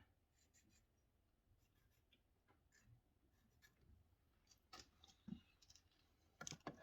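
Near silence with faint, scattered clicks and taps, a few slightly louder ones about five seconds in and near the end.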